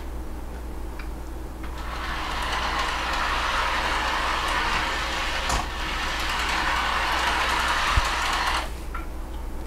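Lionel O-gauge Polar Express trolley running on FasTrack: its small electric motor and wheels give a steady whirring rumble that builds a couple of seconds in and dies away near the end. There is a sharp click about halfway through and a dull knock near the end.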